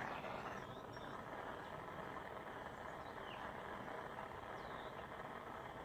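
Small soldering torch flame hissing steadily while heating silver pieces for soldering.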